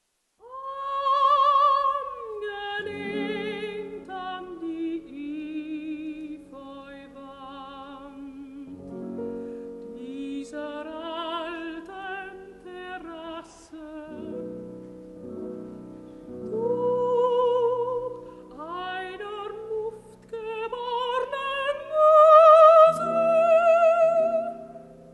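A soprano singing a slow German art song with wide vibrato, in long held phrases over sparse, sustained piano chords; a 1951 recording.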